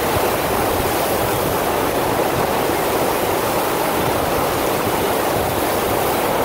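Steady rush of a FlowRider surf machine's pumped sheet of water pouring up and over the wave surface.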